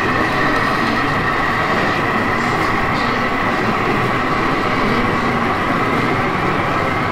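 Model railway locomotive running on the layout, its small motor giving a steady whine that rises slightly in pitch near the end, over the constant background noise of a busy exhibition hall.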